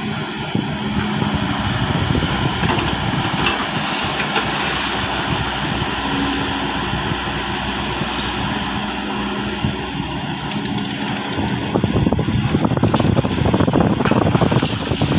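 Excavator's diesel engine running steadily under work, getting louder and rougher in the last few seconds.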